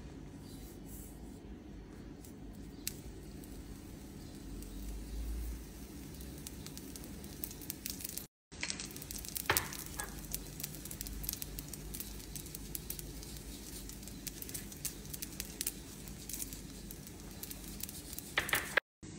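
Light clicks and taps of a spoon and hands working over a metal oven tray, as olive oil is spooned and za'atar spread on raw dough rounds, over a steady low hiss. The sound cuts out briefly twice, about eight seconds in and near the end.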